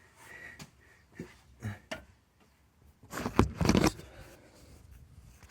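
Clutch pedal and linkage of a Toyota Altezza RS200 six-speed manual being worked: short clicks and a brief faint squeak early on, then a louder cluster of scraping and knocking about three seconds in. The uploader traces the squeak to a dry release-fork pivot short of grease.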